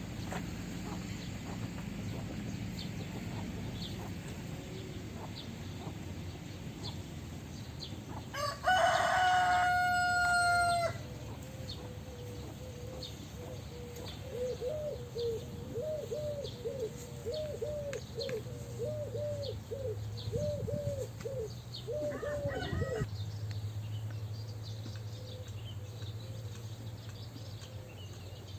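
A rooster crows once, a loud call of about two seconds. A chicken follows with a run of short, repeated clucks lasting several seconds, over a steady low hum.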